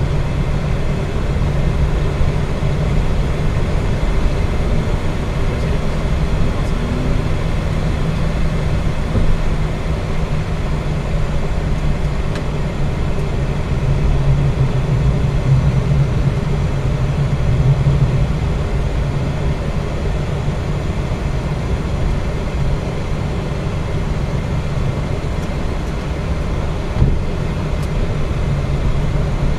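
Steady cockpit noise of a Boeing 737-800 taxiing: its CFM56 engines at idle and the cockpit's fan and air-conditioning hum, with a low drone throughout. A single short click sounds near the end.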